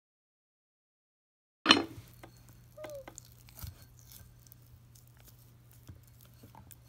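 Silent at first, then a sharp click about a second and a half in, followed by faint squishing and patting of hands kneading oobleck (cornstarch and water) in a glass bowl, over a low steady hum.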